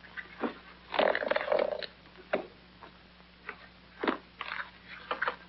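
Rustling and small clicks of a handbag's contents being handled and taken out on a desk: a handful of short, scattered sounds, the longest stretch about a second in.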